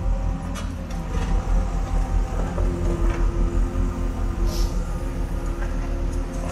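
Hydraulic excavator's diesel engine running under load as it works at a concrete retaining wall, its steady note strengthening about two and a half seconds in, with a few short knocks.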